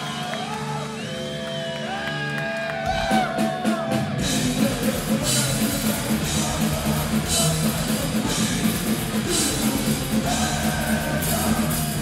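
Live heavy metal band playing: long held notes with wavering sung or shouted lines over them, then drums and distorted guitars come in hard about three seconds in, with the bassist-vocalist singing over the full band.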